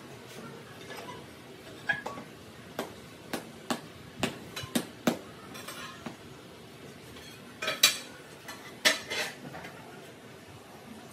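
Ceramic floor tiles and tiling tools clinking and tapping as a tile is set into mortar: scattered sharp clicks, a busy run about two to five seconds in and the loudest knocks near eight and nine seconds.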